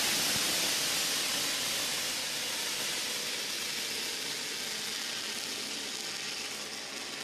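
Ariane 6 rocket at liftoff, its two solid boosters and Vulcain main engine heard as a steady hissing noise that slowly fades as the rocket climbs away.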